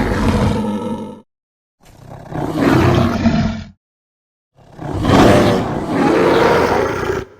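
Designed kaiju monster roar sound effects: three loud, growling roars with dead silence between them, the first fading out about a second in and the last the longest.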